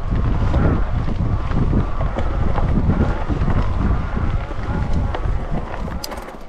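Wind buffeting the camera microphone: a loud, low, gusting rush that eases a little near the end.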